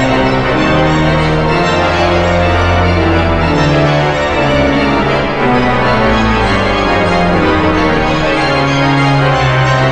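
Walcker pipe organ playing a toccata: rapid repeated chords in both hands over long held pedal bass notes, loud and unbroken.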